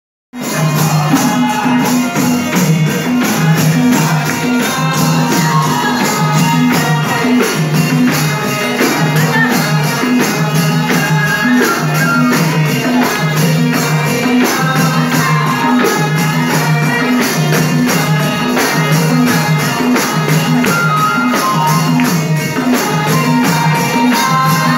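Live folk dance music: a harmonium playing the tune over a steady beat, with a tambourine's jingles shaken in time.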